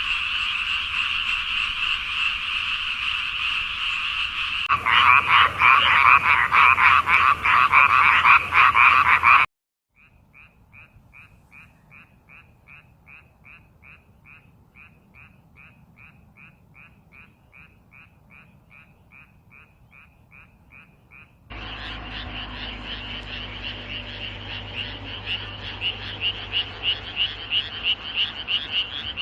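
Frogs calling, in several spliced recordings: a dense chorus that turns to louder pulsing calls, a brief gap, then a single frog giving short, evenly spaced calls about two or three a second, and from about two-thirds of the way in, another chorus of rapidly pulsing calls.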